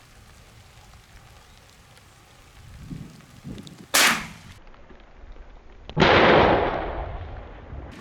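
Two shotgun shots about two seconds apart, fired at doves. The second is louder and rings on for nearly two seconds after the blast.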